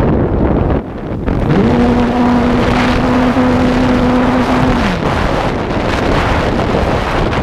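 Strong wind buffeting the microphone during flight, a steady rushing roar. About a second and a half in, a low steady hum slides up in pitch, holds for about three seconds, then slides back down and fades.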